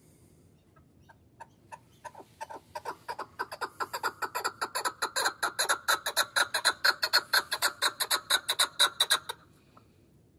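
Chukar partridge calling: a run of short, sharp clucking notes that starts slow and sparse, speeds up and grows louder to several notes a second, then stops abruptly near the end.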